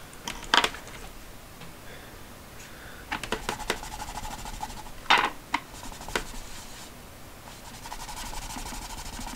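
Handling noises at a work table: a few sharp clicks and taps as a small knife and the plastic calculator case are set down and moved, then a cloth rubbing on the plastic near the end.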